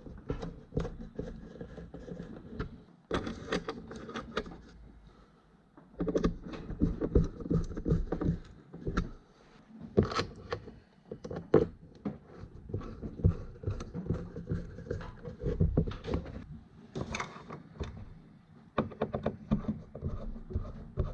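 Hand-held Phillips screwdriver turning small screws into a pine picture frame to tighten metal offset clips over the backing. It comes as irregular runs of small clicks, scrapes and knocks as the clips are rotated and the frame is handled on the workbench.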